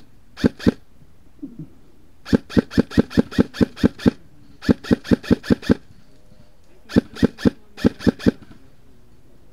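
Airsoft rifle firing rapid single shots, about four to five a second, in four strings with short pauses between them.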